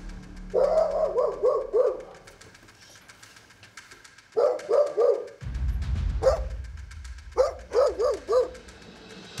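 A dog barking in quick runs of four or five barks with no pause between them, a nervous bark rather than a confident one. Background music underneath.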